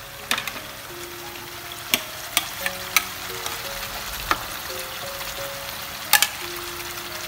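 Marinated field-rat pieces and garlic sizzling steadily as they shallow-fry in hot oil in a nonstick frying pan. Cooking utensils knock sharply against the pan and bowl several times.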